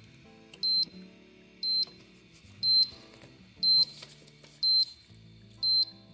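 Hygger auto top off controller beeping a warning, six short high beeps about once a second, a fault alert, which the owner traces to the internal water-level sensor sitting below the desired level. Background music plays under it.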